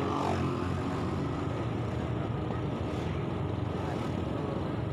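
Steady motorbike engine hum and road and wind noise from riding along a village street, with a brief falling tone just after the start.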